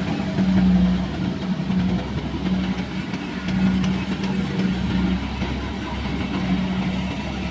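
Kubota rice combine harvester running steadily in the paddy, its engine giving a constant low hum over the clatter and rush of the machinery.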